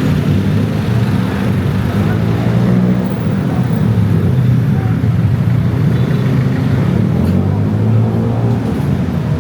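Street traffic noise: a steady, loud, low engine rumble from a motor vehicle close by.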